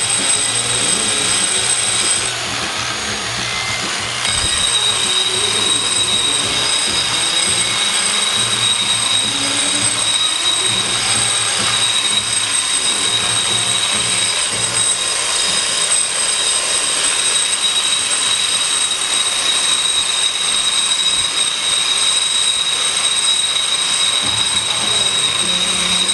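Makita variable-speed grinder with a diamond cup wheel grinding down the hardened concrete edge of a planter: a steady, loud rasping with a high motor whine. The whine drops out and the level dips for about two seconds near the start, then it carries on.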